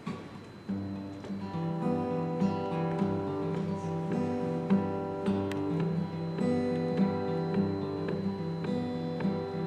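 Acoustic guitar playing chords with a moving bass line, starting about a second in.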